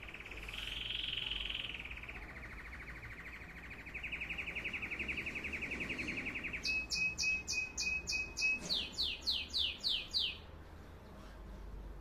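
Caged canary singing: a long, fast, rolling trill on one pitch, rising a little for a moment about a second in, then a louder run of quick repeated notes, each sweeping downward, about three or four a second, which stops about ten seconds in.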